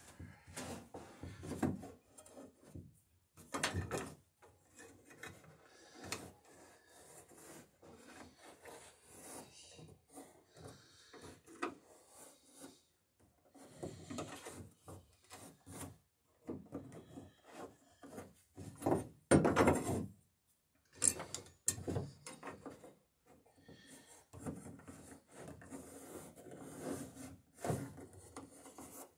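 Pencil scraping along the wooden side of a boat's centerboard case while scribing a cut line, with intermittent rubbing and a few short wooden knocks. The loudest knocks come about four seconds in and again around twenty seconds in.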